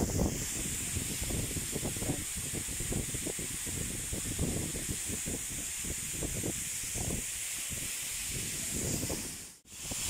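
Waterfall rushing as a loud, steady hiss of falling water and spray. The sound cuts out sharply for a moment near the end.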